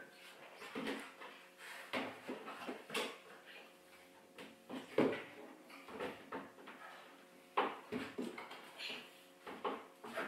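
Hands and climbing shoes knocking and slapping on the plastic holds of a plywood overhanging bouldering wall as a climber moves across it. The knocks come irregularly, about one a second, over a faint steady hum.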